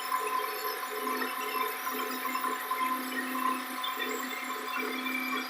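Dry-mix volumetric concrete truck running with its PTO engaged: a steady mechanical whine with several held tones.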